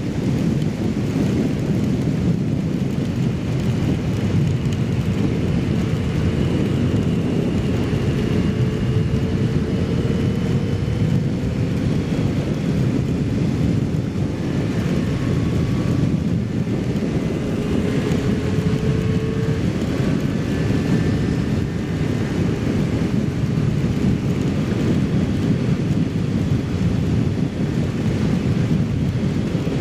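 Heavy wind rush over the microphone of a Kawasaki Z750 riding at highway speed in the rain, with the inline-four engine's steady drone faintly underneath, its pitch drifting slightly with speed.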